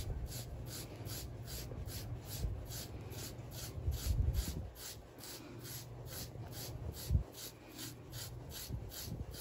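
Carding knife raking through a puppy's thick back coat in short, even strokes, about three a second, pulling out dead undercoat. A few dull bumps from handling the dog come about four seconds in and again near seven seconds.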